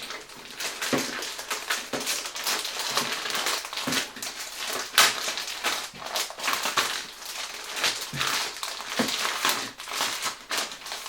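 Crinkly packaging rustling and crackling as it is handled, with many sharp, irregular crackles.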